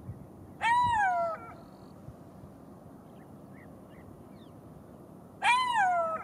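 Golden jackal calling: two short wailing cries about five seconds apart, each rising briefly and then sliding down in pitch.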